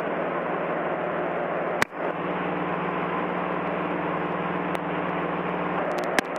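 Steady drone of a light single-engine airplane's engine and propeller in cruise flight, heard inside the cockpit. It jumps louder at the very start, with a sharp click about two seconds in and a few clicks near the end.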